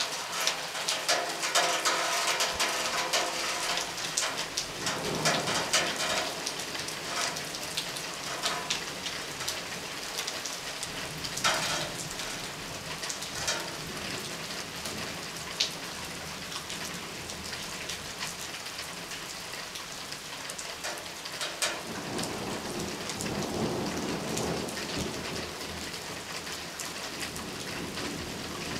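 Steady thunderstorm rain with many close drops ticking, heaviest in the first few seconds. Low thunder rumbles briefly about five seconds in, then again for several seconds from about twenty-two seconds.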